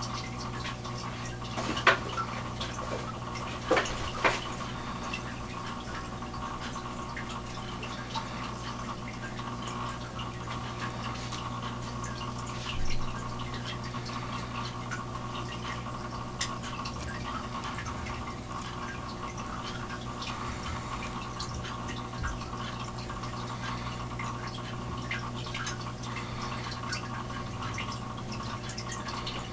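Steady hum with water trickling and dripping, as from an aquarium filter, and a few louder clicks about two, four and thirteen seconds in.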